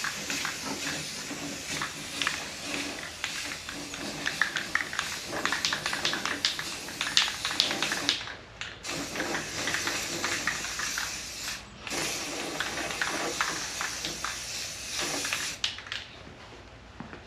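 Irregular clattering and knocking from a part being handled and turned over, with a few brief breaks in the sound.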